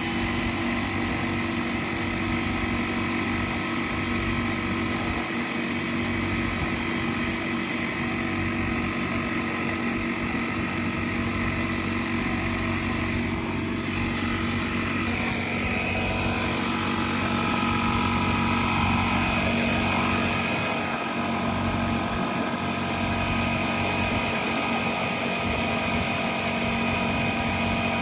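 Bostitch air compressor's motor and pump running steadily as it fills its tank, a continuous drone with a slight shift in its higher whine about halfway through.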